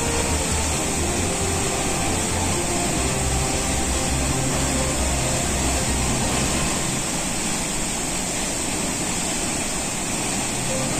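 Waterfall in monsoon flood, a heavy torrent of water pouring into a gorge: a steady, dense rush of falling water that holds level throughout.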